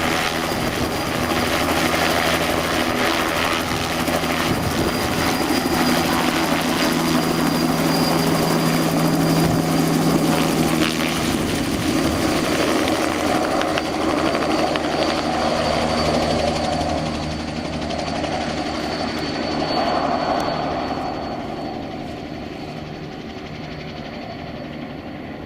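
Bell 206LT TwinRanger helicopter's rotor and twin turboshaft engines running at high power, with a steady high turbine whine over the rotor noise. The sound grows quieter and the whine fades over the last several seconds as the helicopter departs after takeoff.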